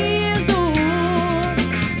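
Band music with drums, bass and guitar playing. About half a second in, a long wavering melody note comes in and is held.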